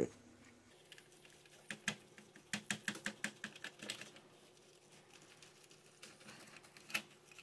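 A run of quick, light clicks and scratches for about two seconds, then a single click near the end: small parts of an HO-scale model locomotive being worked on by hand, its metal contacts being cleaned.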